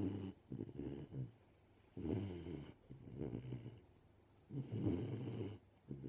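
A 13-week-old golden retriever puppy snoring in her sleep, one snore with each breath, coming roughly every two and a half seconds with quieter pauses between.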